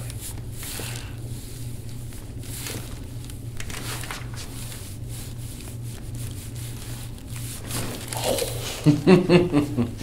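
Manual chiropractic neck adjustment on a very tight neck: a low steady hum and faint rustling while the hold is strained. About nine seconds in a sudden pop comes as the stubborn neck joint finally releases, followed by short vocal reactions.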